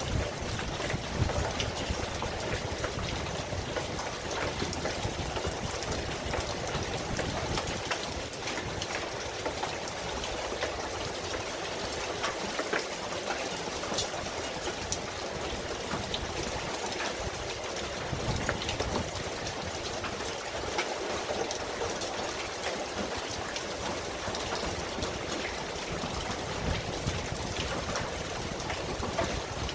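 Steady heavy rain falling, a dense even hiss with scattered sharper drop hits.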